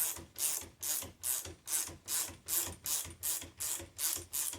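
GearWrench ratcheting wrench turning the 19 mm nut on a spring compressor's threaded rod: quick, even strokes of ratchet clicking about three a second as the coil spring is compressed.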